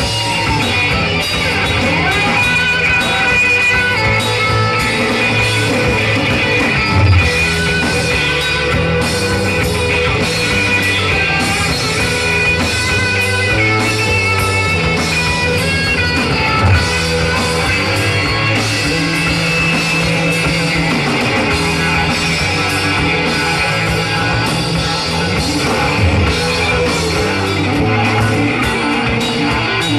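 Rock band playing live on electric guitars, bass and drums in an instrumental stretch without vocals, with three heavy drum hits standing out about 7, 17 and 26 seconds in.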